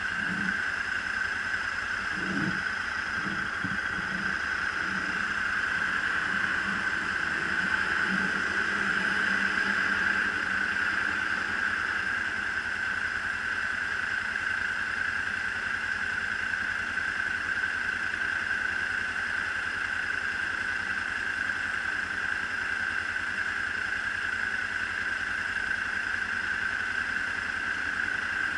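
Kawasaki Ninja 300's parallel-twin engine idling steadily while the motorcycle stands still. Some low passing-traffic sound comes and goes in the first ten seconds or so.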